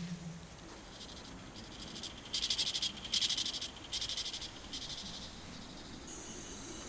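Rainforest ambience with a high, rapidly pulsing animal trill in four short bursts of about half a second each in the middle, then a steady high whine starting near the end.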